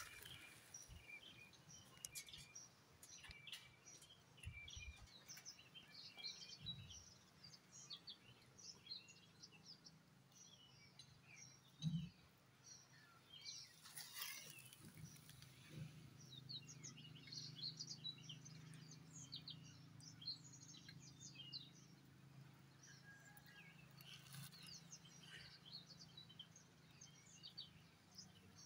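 Faint birds chirping, many short calls scattered throughout. A single brief knock about twelve seconds in, and a low steady hum sets in about halfway.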